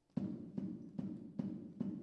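Drums struck in an even beat, about two and a half strokes a second, each stroke ringing on at a low pitch. The strokes begin just after the start, out of near silence.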